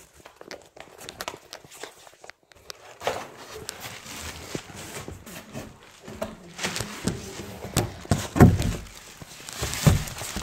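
Bumps, rubs and rustles of a hand-held phone being carried and moved about, with scattered knocks and two heavier thumps near the end.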